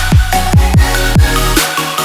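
Electronic dance music with a steady kick-drum beat, each kick sweeping down in pitch, about two a second, under sustained synth chords; no vocals in this stretch.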